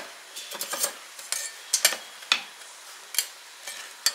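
Kitchen clatter: a dozen or so sharp, irregular clicks and clinks of hard kitchenware and pieces being handled on a counter during lobster preparation.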